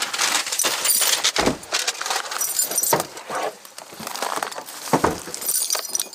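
Footsteps crunching over gravel and rubble, with a heavy step about every one and a half to two seconds and light clinking in between.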